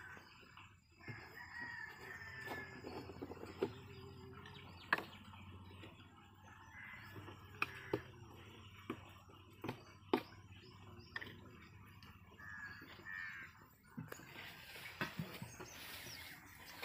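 Sharp clicks and knocks from a plastic jerry can and its screw cap being handled and opened, with birds calling faintly in the background.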